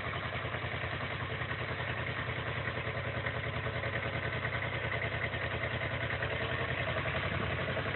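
Compact tractor's engine running steadily with an even, rapid chug while its front loader lifts a bucket of dirt.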